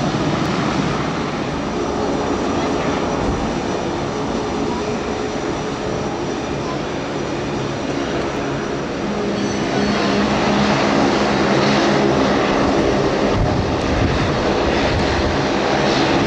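Boeing 777-200LR's twin jet engines running at low taxi thrust, a steady whine and rumble that grows louder about two-thirds of the way through.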